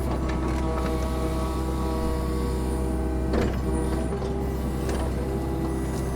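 Compact excavator running steadily, its engine hum carrying a steady hydraulic whine, with a couple of sharp knocks of the machine working, the loudest about three and a half seconds in.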